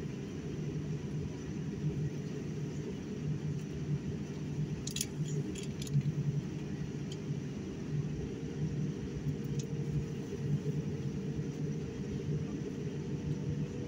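Airliner cabin noise during taxi: a steady low rumble and hum, with a few light metallic clicks about five to six seconds in and a faint tone slowly creeping up in pitch in the second half.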